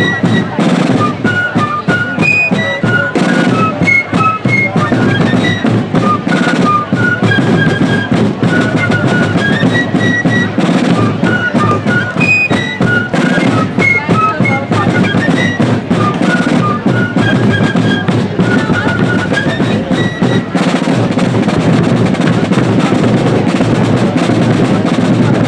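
Fife and drum corps playing: shrill fifes carry a quick melody over snare and bass drums. About 20 seconds in, the fife melody drops out and the drums carry on.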